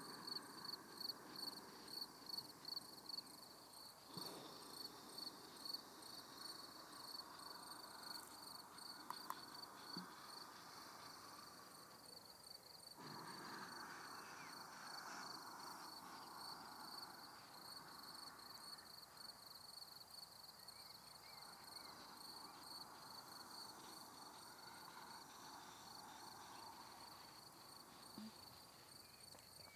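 Near silence, with crickets chirping faintly in the background: a steady, high-pitched trill of rapid, even pulses.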